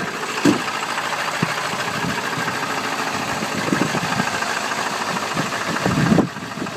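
Ford Power Stroke diesel engine idling steadily, running cold just after it fired up from a cold start.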